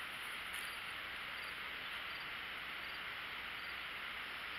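Steady outdoor insect chorus, a continuous high chirring with faint scattered chirps above it.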